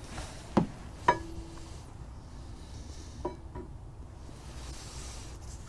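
Brake caliper and pads clinking as they are handled and fitted together: two sharp metallic clinks about half a second apart, the second ringing briefly, then two lighter clicks a little past halfway.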